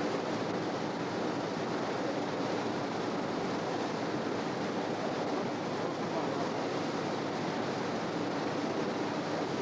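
Steady rushing noise of wind and water, unbroken and even in level.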